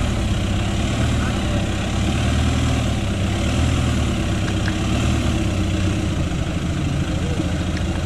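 Volkswagen Amarok pickup's engine running steadily at low revs as the truck crawls over a steel seesaw ramp.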